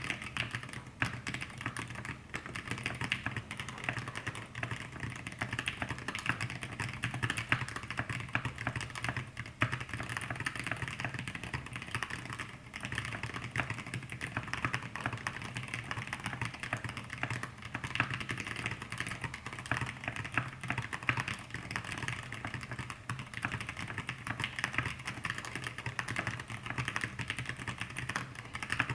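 Fast, continuous typing on a mechanical keyboard with lubed Zealios 65g v2 tactile switches in an aluminium-plate Exclusive E6-V2 case, under thick PBT keycaps: a dense, even stream of soft keystroke clacks, with now and then the deeper thock of a spacebar stuffed with cotton pads.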